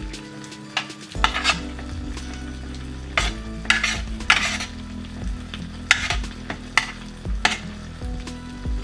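A spoon stirring and scraping through a beef, bean and corn salad on a tray, in a series of irregular scrapes with a couple of louder ones in the middle.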